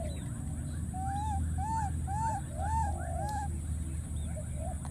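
An animal calling: a run of about six short, clear notes, each rising and falling, about two a second, over a steady high hiss and a low rumble.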